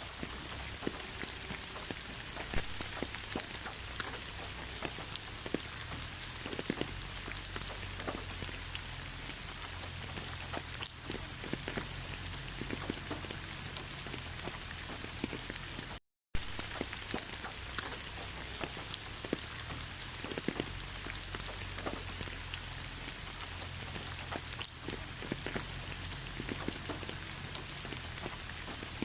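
Steady rain with many individual drops tapping, over a low steady rumble. The sound cuts out completely for a moment about halfway through.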